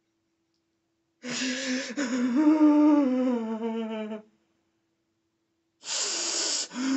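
A man crying: a drawn-out, wavering sobbing wail starting about a second in. After a short pause, a sharp, breathy gasp near the end.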